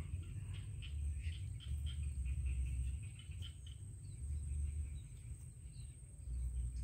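Wind buffeting the microphone in uneven gusts, with small birds chirping here and there and a steady high-pitched insect drone.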